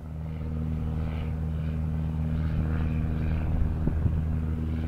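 A blimp's engines droning overhead: a steady, even, low hum that swells in over the first second.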